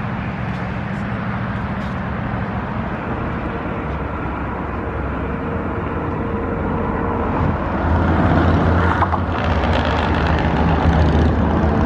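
Steady low rumble of engine noise from vehicles, with a deeper, heavier engine sound building about eight seconds in.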